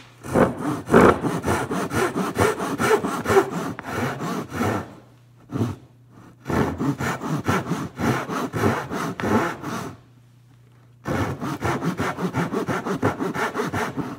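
Hand saw cutting through wood in repeated back-and-forth strokes, sawing the shoulders of half-lap joints, with two short pauses about five and ten seconds in.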